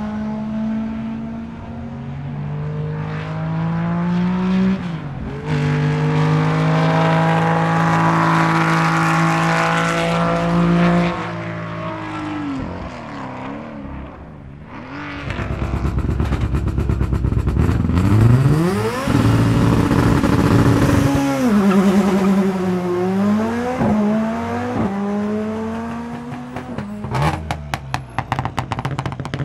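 Rally cars at full power on a circuit, one after another, each engine revving up through the gears with quick upshifts and revs falling away into corners. Near the end, a Škoda Fabia S2000 comes through with a rapid string of sharp pops and crackles.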